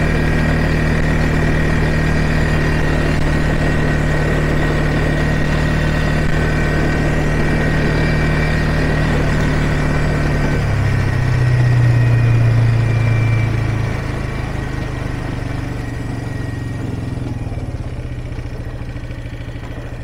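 ATV engine running steadily under way. About ten seconds in its note drops, and over the last few seconds it runs quieter.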